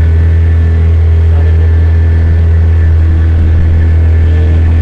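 An engine running steadily: a loud, low, even drone that holds the same pitch throughout.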